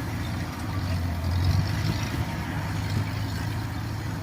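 A machine engine running steadily with a low, even hum.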